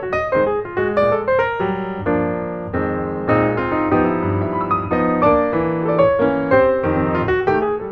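Background piano music: a steady melody of quick single notes over lower held chords.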